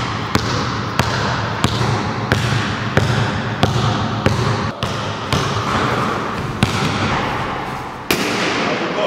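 Basketball bouncing on a sports-hall floor as it is dribbled, a bounce about every two-thirds of a second, each one echoing around the hall. A louder single hit comes a little after eight seconds in.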